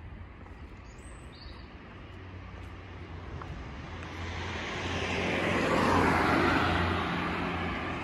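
A car passing close by on the road: tyre and engine noise swell over a few seconds, peak about six seconds in, then fade as it drives away.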